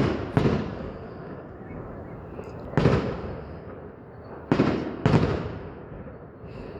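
Fireworks exploding: five loud bangs, a pair at the start, one about three seconds in and another pair half a second apart at about four and a half seconds, each dying away over about a second.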